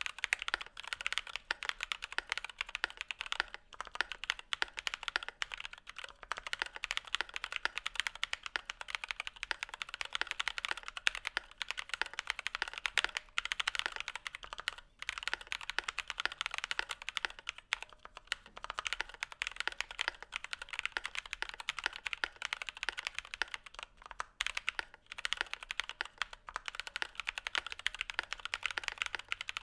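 Continuous fast typing on a mechanical keyboard fitted with stock (unlubricated) Durock POM linear switches: a dense run of keystrokes, with a few brief pauses.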